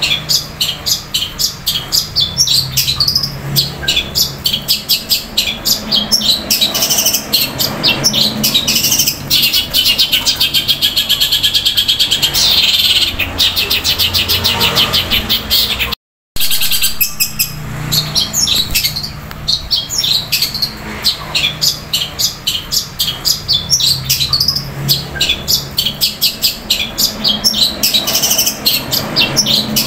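Cendet (long-tailed shrike) singing a loud, fast, unbroken chatter of rapid chirps, the sparrow-fight ('gereja tarung') mimicry that bird keepers train it on. The sound cuts out for a moment about halfway through.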